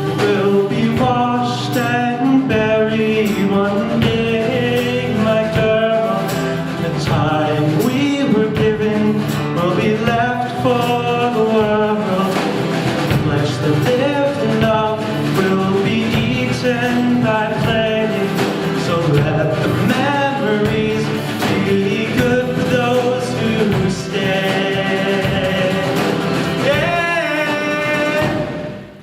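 Live band playing a folk-rock song with guitar and a male voice singing, with a brief drop in the music at the very end.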